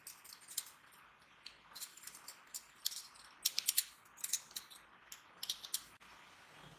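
Small metal gun parts clicking and ticking lightly at irregular intervals, with a quick cluster of clicks about three and a half seconds in.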